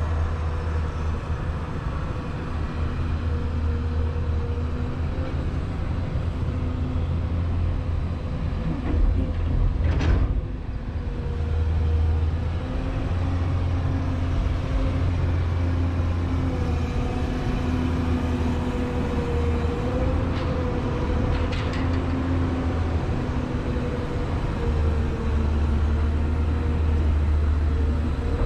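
Ship's diesel machinery droning steadily: a low rumble with a steady hum over it. A brief sharp noise breaks in about ten seconds in.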